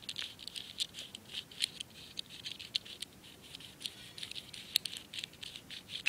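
Plastic fidget cube's gear side: its small green gear wheels and metal ball worked by a finger, giving a run of quick, irregular, light clicks.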